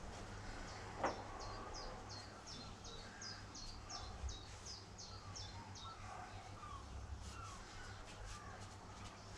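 Birds calling: a quick run of high, repeated chirping notes, about three a second, for the first five seconds or so, with lower short calls underneath. A sharp knock about a second in.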